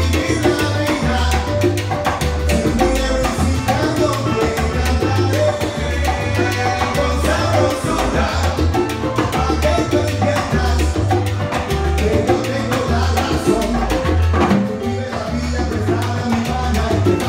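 Live salsa band playing, with congas, drum kit and keyboard over a pulsing bass line.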